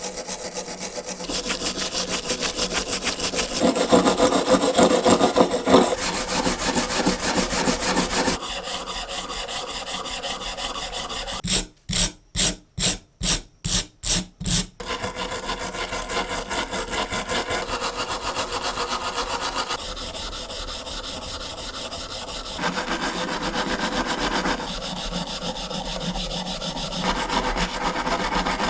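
Hand-held abrasive rubbing against the parts of an old hand drill: fast back-and-forth rasping strokes, with a stretch of about eight slower, separate strokes in the middle.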